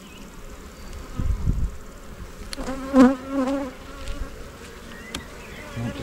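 Honey bees buzzing around an open hive, with one bee flying close past the microphone about three seconds in, its buzz wavering up and down. A few sharp wooden knocks as a frame is set back into the hive box.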